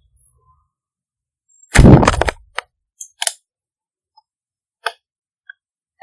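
Fluffy slime being squeezed: one loud crackling burst of popping air about two seconds in, then a few small scattered pops and clicks.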